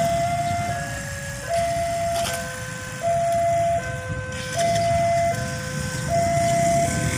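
Railway level-crossing warning alarm sounding a two-tone electronic chime that alternates a higher and a lower note about every three-quarters of a second, signalling an approaching train with the barrier down. A low rumble runs underneath.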